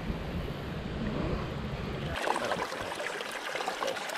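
Wind rumbling on the microphone over running river water; about two seconds in the rumble cuts off and shallow water trickles and ripples close by.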